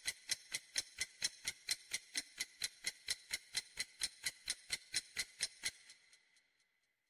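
Countdown timer sound effect: a clock tick repeating steadily, about four ticks a second, stopping shortly before the end.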